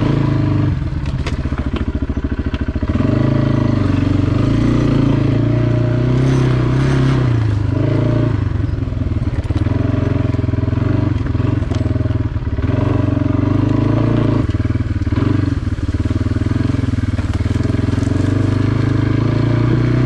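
Kawasaki ATV (four-wheeler) engine running under load while climbing, its revs rising and falling. It runs slow with separate firing pulses at first, then picks up to higher revs about three seconds in.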